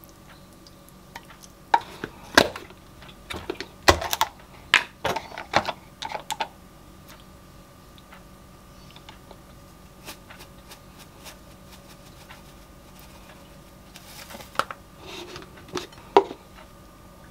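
Wooden spoon scraping and knocking pasta out of a frying pan onto a plate: a cluster of clicks and knocks over a few seconds, then a few more light knocks and a brief rustle near the end as things are set down. A faint steady hum runs underneath.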